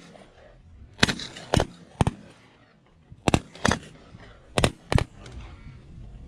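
A volley of shotgun blasts from a group of waterfowl hunters shooting at snow geese overhead. There are seven sharp shots over about four seconds, coming singly and in quick pairs, then quiet field background.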